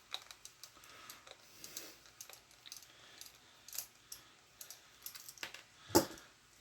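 Small clicks, taps and scrapes of hard plastic toy parts and tools being handled during a teardown, with one louder knock about six seconds in.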